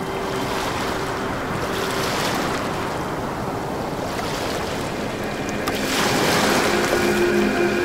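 Ambient background music with ocean-surf sounds washing in and out. Held notes fade out early and come back louder about six seconds in.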